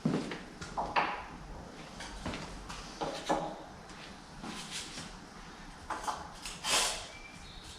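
Irregular knocks, bumps and scrapes, about a dozen of them, the loudest a longer scrape near the end.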